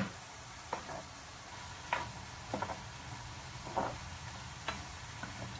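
A pan of string-bean adobo simmering with a faint steady sizzle, with six short clicks and knocks at irregular intervals of about a second.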